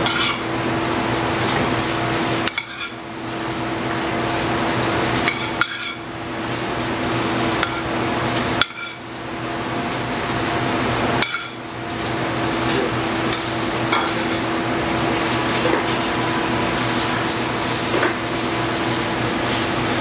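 A metal spoon clinking and scraping in a stainless sauté pan as sautéed vegetables are spooned out onto a plate, with sharp clicks now and then. Underneath runs a steady kitchen noise with a low hum and some frying, which drops out suddenly for a moment a few times.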